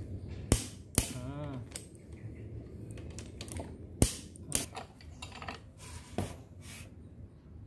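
A handful of sharp metallic clicks and clinks, spaced irregularly, as a socket wrench is worked on the bolts of a Toyota Avanza 1.3 engine block during crankshaft and piston assembly. A short hummed voice sounds about a second and a half in.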